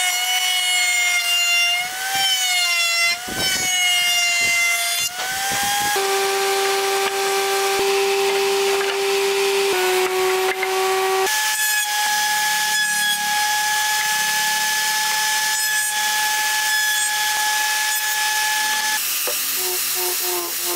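Electric power tool whining at high speed while square wooden stock is milled into round dowels; the pitch dips and recovers as the wood is pushed through. The tone then holds steadier and jumps to new pitches a few times, and near the end an angle grinder with a sanding disc runs against wood.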